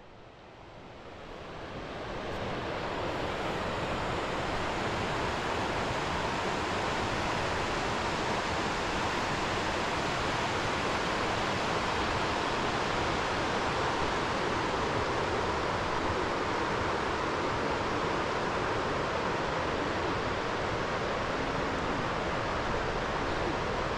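Steady rushing of river water, fading in over the first two seconds and then holding even.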